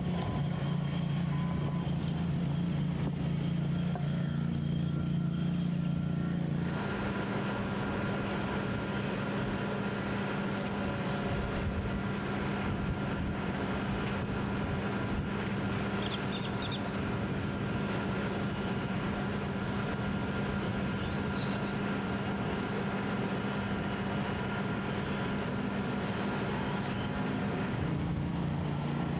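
Steady engine drone of running machinery, a low hum with several held tones above it; it shifts to a different pitch about seven seconds in and shifts back near the end.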